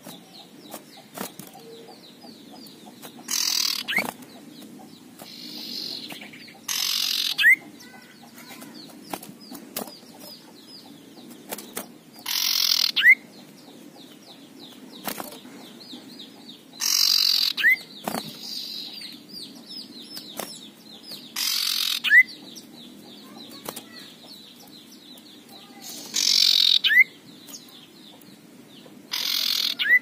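Male common iora (cipoh) giving its harsh, rasping 'ngekrek' call seven times, one every four to five seconds. Each call is a short grating rasp ending in a quick rising note.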